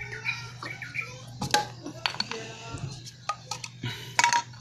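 Sharp clicks and clinks of plastic and metal as a Suzuki distributor is handled: its cap, with the spark plug leads attached, is unclipped from the distributor body and set down among wrenches on concrete. The loudest clicks come near the end.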